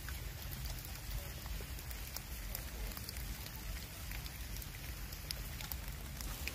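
Steady outdoor background hiss with scattered faint ticks and a low rumble underneath.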